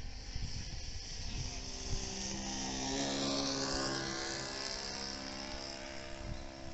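Model tow plane's motor and propeller passing overhead, swelling to its loudest about three seconds in and then fading, its high whine dropping slightly in pitch as it goes by. Wind rumbles on the microphone throughout.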